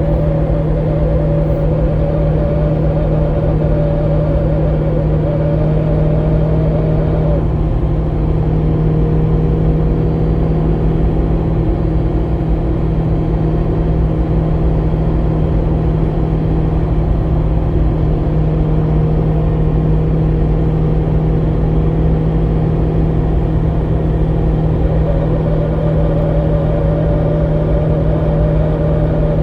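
Car travelling at highway speed: a steady low drone, with a higher whine over it that fades out about seven seconds in and comes back near the end.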